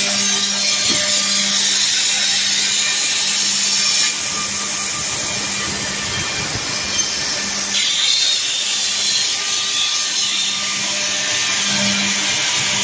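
Holzher Streamer 1057 XL edgebanding machine running, its unit motors giving a steady hum under a high hiss. The hiss cuts off abruptly about four seconds in and returns about four seconds later.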